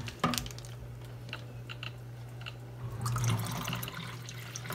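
Water dripping and then pouring out of a plastic fish bag through a small mesh aquarium net into a plastic bucket; the pour thickens about three seconds in. There is a sharp knock just after the start, and a steady low hum underneath.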